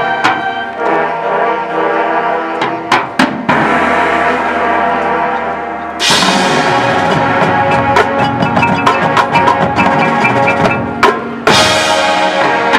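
High school marching band playing: sustained wind and brass chords with sharp percussion hits. A fuller, louder chord comes in about six seconds in and again near the end.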